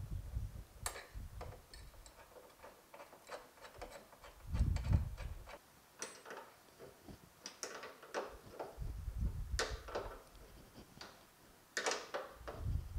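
Scattered metal clicks and taps as a hand wrench turns the bolts holding the brake-booster standoff bracket to the firewall, with a few dull low thumps in between.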